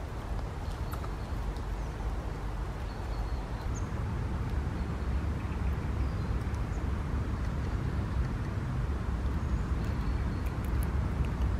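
Steady outdoor ambience in the rain: a continuous low rumble with faint scattered ticks of rain, and a few short, high bird chirps now and then.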